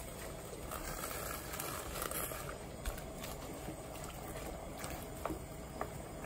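Wooden spatula stirring Chinese mallow leaves through hot anchovy broth in a glass pot: soft scrapes and a few light knocks over a steady low hiss.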